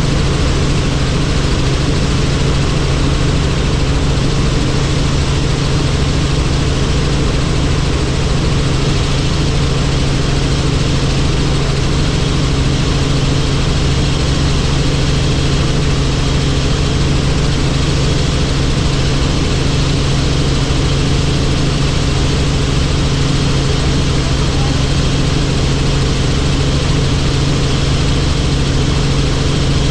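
Helicopter in steady flight: a loud, even drone with a strong steady low hum.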